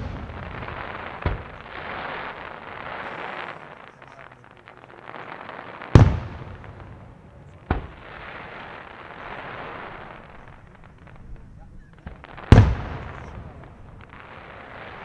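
Aerial firework shells bursting: two loud booms, one about six seconds in and one near the end, with smaller sharp reports about a second in and shortly after the first boom. A steady hiss fills the gaps between the bursts.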